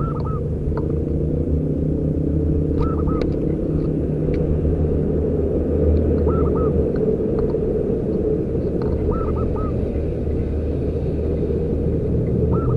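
Zebra dove (perkutut) calling: short groups of two to four arched notes, repeated about every three seconds. A steady low rumble, louder than the calls, runs underneath.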